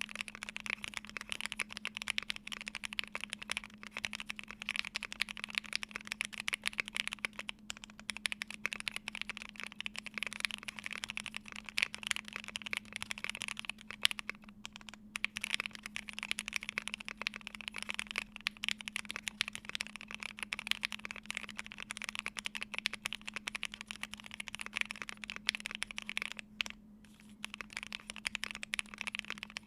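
Steady typing on a Polaris mechanical keyboard with lubed, filmed Banana Split linear switches in a polycarbonate plate and ePBT keycaps: a dense, continuous clatter of keystrokes, broken by short pauses about 7, 14 and 27 seconds in.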